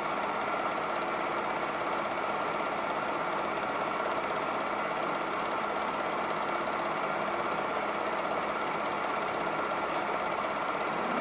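Super 8 film projector running: a steady, fast mechanical clatter from the film transport, unchanging throughout.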